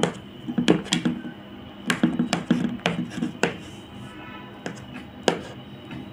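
Knife cutting through soft steamed dhokla and knocking on the plate beneath it: about nine sharp, uneven taps, most of them in the first three and a half seconds, over background music.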